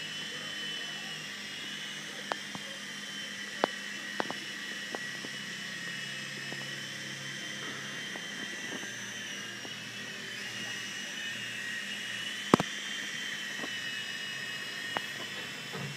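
Small Blade electric RC helicopter hovering, its motor and rotor giving a steady high whine that wavers slightly in pitch as the throttle changes. A few sharp clicks are heard over it, the loudest about twelve seconds in.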